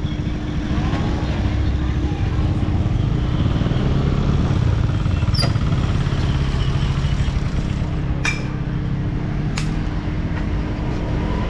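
An engine running steadily with a low rumble and a held hum, with a few sharp clicks about halfway through and again later.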